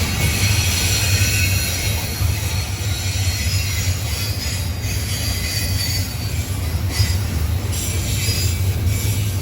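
Intermodal freight train rolling past: a steady low rumble of the cars, with a faint high squeal of steel wheels on the rails that is strongest in the first couple of seconds.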